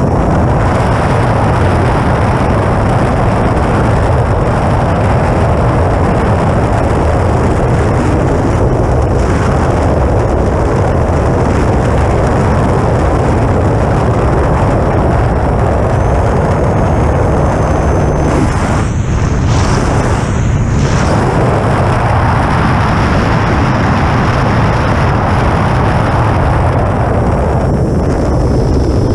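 Steady rush of airflow over a wingtip-mounted action camera on an E-flite Air Tractor RC plane in flight, loud and heavy in the low end. A faint high whine runs underneath and shifts in pitch for a few seconds around the middle.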